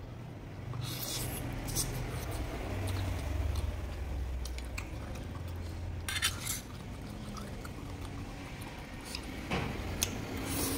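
Close-miked chewing of a whole octopus, with a metal fork clinking and scraping in a metal noodle pot several times.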